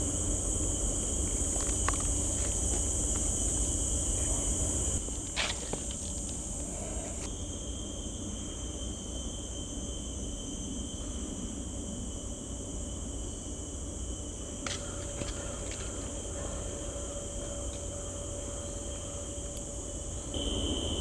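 Steady high-pitched insect buzzing over a low, constant rumble. The buzzing drops much lower about five seconds in, and a few faint single knocks come through.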